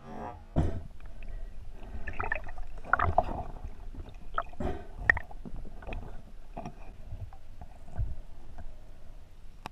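Underwater sound picked up by a camera in its waterproof housing: a low rumble of gurgling water with irregular muffled knocks and clicks, louder about half a second in and again around three seconds, as a diver moves through reeds.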